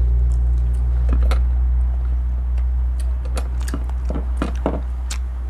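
A steady low rumble runs throughout. Over it come scattered sharp clicks and taps of eating: utensils on dishes and chewing, thickest about a second in and again from about three to five seconds in.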